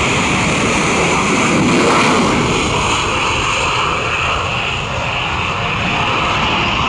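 F-22 Raptor's twin Pratt & Whitney F119 turbofans at full afterburner during a maximum-power takeoff, a loud steady jet noise as the fighter lifts off and climbs away. It peaks about two seconds in.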